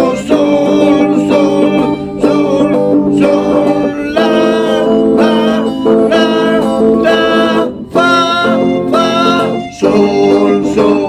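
Chamamé played live: a melody in held chords over a plucked-guitar accompaniment, the chords shifting every second or two.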